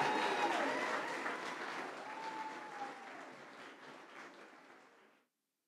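Audience applauding, fading away and cutting off to silence about five seconds in.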